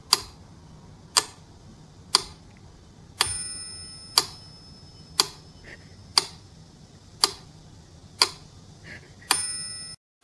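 Mechanical pendulum metronome ticking steadily about once a second, ten ticks in all. On two of the beats, about three seconds in and near the end, its bell rings along with the tick and lingers.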